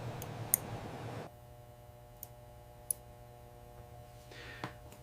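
Faint, sparse small clicks over a low steady hum; a soft hiss drops away about a second in.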